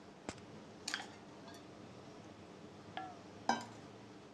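Steel spoon clinking against the bowl while stirring a crumbly flour-and-semolina dough with sugar syrup: a handful of light clinks, the loudest about three and a half seconds in, the last two ringing briefly.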